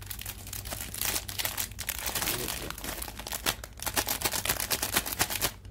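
Thin clear polythene bag crinkling and crackling in the hands as it is handled and pulled at along its freshly heat-sealed edge, a dense run of quick irregular crackles.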